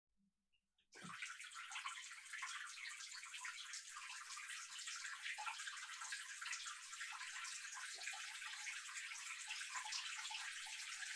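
A weak stream from a tap running into a sink, heard from about a metre away: a thin, steady splashing that starts about a second in.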